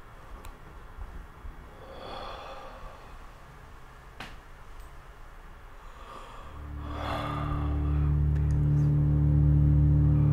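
A man's breathing with two sharp gasps and a single click. A little past halfway a low, steady droning score fades in and swells until it is the loudest sound.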